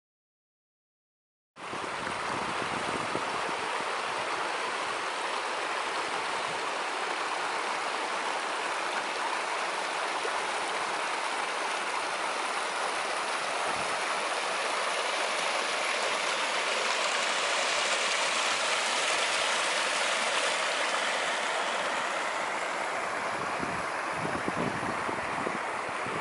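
Small mountain creek running over rocks, a steady rushing that starts about a second and a half in. Near the end the rushing thins and some low rumbles come in.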